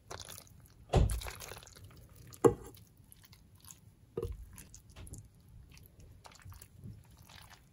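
Silicone spatula scraping a creamy imitation crab and shrimp mixture out of a metal mixing bowl and spreading it over rice in a ceramic baking dish: soft wet squishing with a few sharp knocks of spatula against bowl or dish, the loudest about a second in and about two and a half seconds in.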